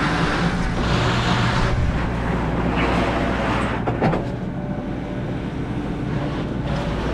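An engine running steadily with a low hum, with swells of noise over it and a single knock about four seconds in.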